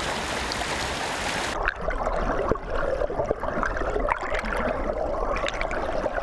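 Fast-flowing water in a shallow fish pass stream, heard as an even rush, then about a second and a half in a sudden change to the muffled underwater sound of the same stream: gurgling with many small clicks and ticks.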